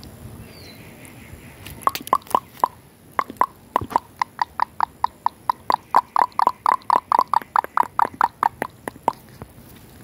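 A rapid run of sharp, hollow clucking clicks. They begin unevenly about two seconds in, settle to about five a second, and stop about a second before the end.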